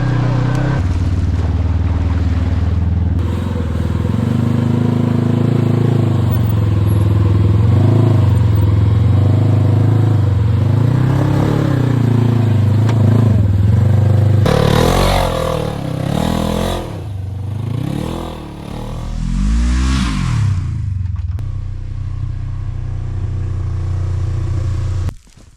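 Polaris RZR Trail 900 side-by-side engine running under way, its revs climbing and dropping again and again as it is driven, with a rougher, noisier stretch of repeated hard revving in the second half. The sound cuts off suddenly near the end.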